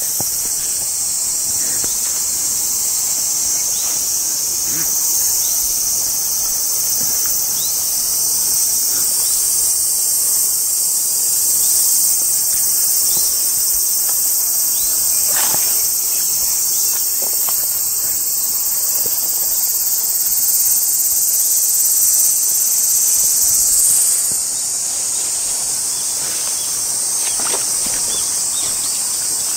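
Dense, steady chorus of insects calling in a high-pitched continuous trill, slightly thinning in its highest part late on.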